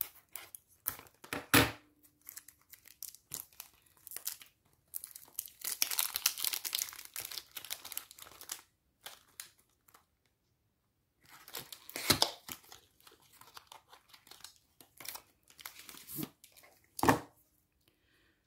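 Factory packaging of a small toothpaste box being snipped with scissors and torn open, the wrapping crinkling in two long stretches, with a few sharp knocks in between.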